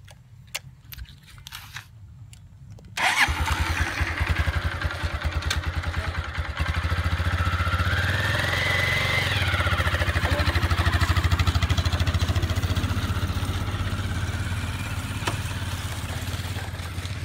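Small single-cylinder motorcycle engine: a few light clicks at the controls, then the engine catches suddenly about three seconds in and idles with an even beat. From about six seconds it runs louder as the bike pulls away, its pitch rising and falling once, then eases off toward the end.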